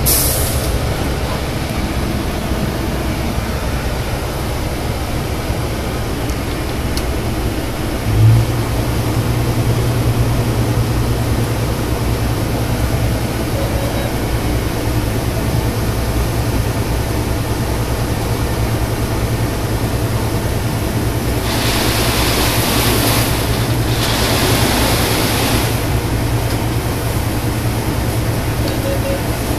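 Airport fire truck's engine and water pump running steadily under load while the bumper turret sprays, heard from inside the cab as a loud drone with a low hum. A thump about eight seconds in, after which the low hum grows stronger; two stretches of hissing rush near the end.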